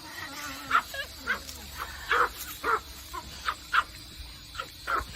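A dog barking in short, repeated barks, about two a second.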